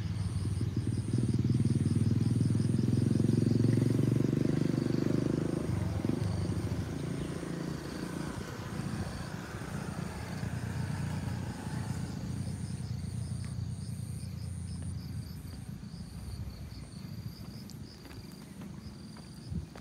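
Insects chirping in an even, repeating pulse, about two a second, over a low rumble that is loudest for the first few seconds and then fades away.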